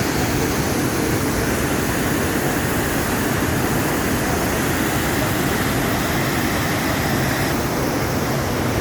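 Dhuandhar Falls on the Narmada river crashing in full, high flow: a loud, steady rush of falling water with no let-up.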